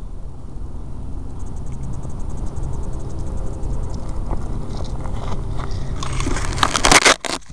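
Steady low rumble on the onboard camera's microphone of a grounded RC plane, then a loud crackling, crunching rustle near the end that stops abruptly, as the plane is handled in the grass.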